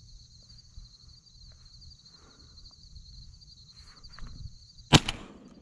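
Insects trilling steadily in the field, then one loud shotgun shot about five seconds in.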